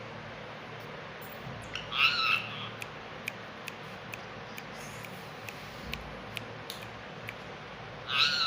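Ringneck parakeet giving two short, loud squawks, one about two seconds in and one near the end, with faint scattered clicks in between.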